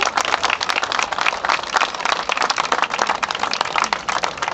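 A crowd clapping: a dense, steady patter of many hands.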